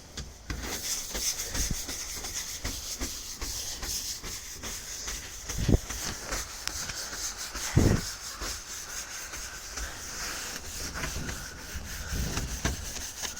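A small hand brush scrubbing a surface with rapid back-and-forth strokes, with two dull knocks about six and eight seconds in.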